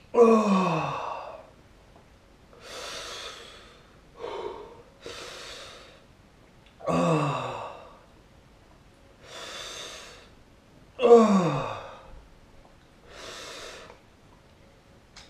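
A man breathing hard through the burn of a superhot chilli pepper, with breaths in and out about every two seconds. Three of them come out as moaning sighs that slide down in pitch: one near the start, one about seven seconds in and one about eleven seconds in.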